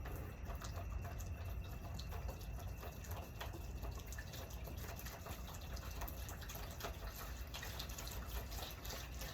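Water pouring and splashing, with many small irregular splashes and drips, as a chicken's water dish is emptied or refilled.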